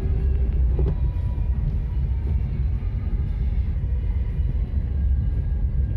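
Maruti Suzuki Alto K10 driving slowly, heard from inside the cabin: a steady low rumble of the small three-cylinder petrol engine and the tyres on the lane.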